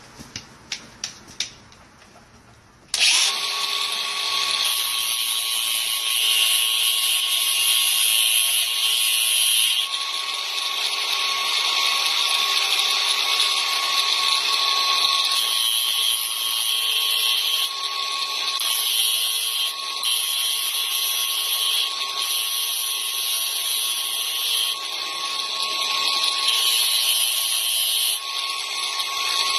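A few light clicks, then about three seconds in an angle grinder switches on and runs with a steady high whine. Its sound shifts every second or two as the disc grinds the back of a metal door strike plate.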